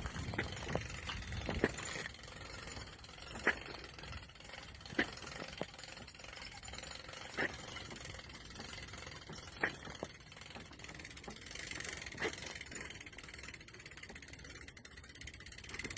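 Single sharp clicks and knocks at uneven gaps of one to two and a half seconds over a steady outdoor background, from a boat trailer and its winch as the boat is hauled up a slipway.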